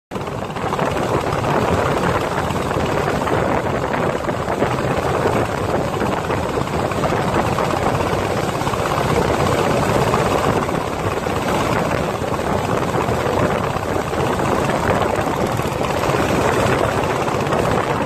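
Motorboat engine running steadily at speed, with water rushing and splashing past the hull.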